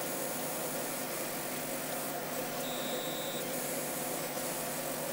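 Steady background hiss with a faint hum beneath it, and a faint thin high tone for under a second about three seconds in.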